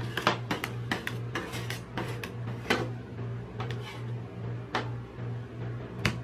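Steel spatulas chopping and scraping ice cream on a stainless-steel cold plate: irregular sharp clicks and taps of metal on metal, with a few louder strikes, over a steady low hum.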